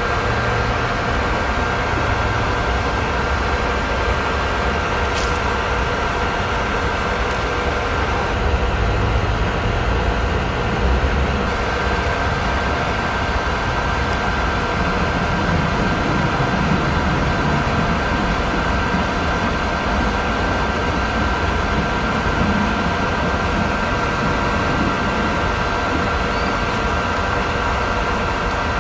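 Automatic ramen cooking machine running: a steady mechanical drone with a constant high whine, while ramen boils in a paper bowl on its hot plate.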